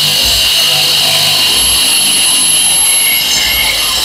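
Electric wall chaser running under load, its blades cutting a groove into a wall: a loud, steady high whine over grinding noise.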